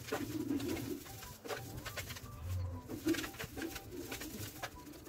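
Wooden spatula scraping and stirring a thick mawa stuffing in a non-stick pan, in irregular strokes, as the mixture is cooked down until dry. A low cooing sounds in the background.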